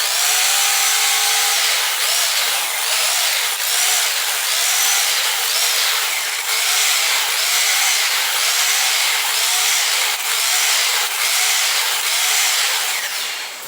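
Bosch impact drill running continuously in hammer-only mode with a pointed chisel bit fitted, the setting for breaking concrete. Its pitch swells and dips regularly, a little under twice a second, and it stops near the end.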